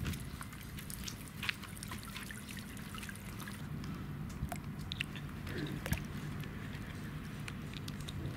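Water dripping and trickling in a basin around a small floating solar fountain pump, over a low steady hum. Scattered small clicks come from plastic nozzle caps being handled and one being fitted onto the pump.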